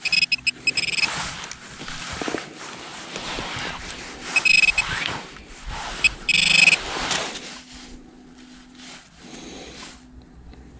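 Handheld metal-detecting pinpointer sounding in several short, high-pitched electronic bursts as it is pressed into a clump of dug soil to find a small metal object, with soil crumbling and rustling between the bursts.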